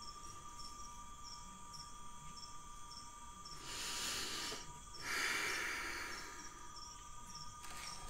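Cicadas and other insects singing in a steady chorus with a fast, even pulse. Two louder swells of buzzing come in the middle, each lasting about a second.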